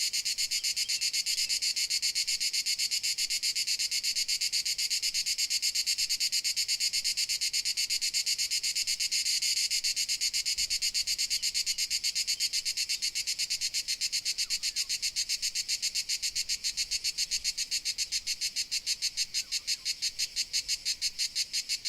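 A chorus of crickets chirping in a continuous, high-pitched, rapidly pulsing trill. The pulses grow more distinct with deeper gaps from about two-thirds of the way in.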